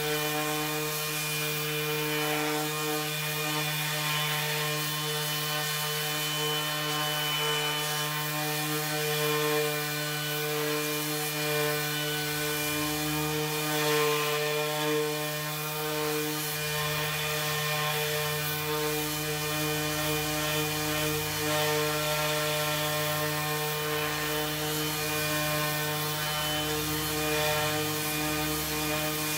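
Bosch GEX 18V-125 cordless random orbital sander running steadily while sanding a wooden board. Its motor gives a constant hum of several steady tones over the hiss of sandpaper rubbing on the wood.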